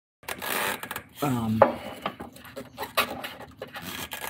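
Strap wrench rubbing, creaking and scraping as it is heaved on a stuck oil filter housing cap, with a short strained grunt about a second in and scattered clicks after it.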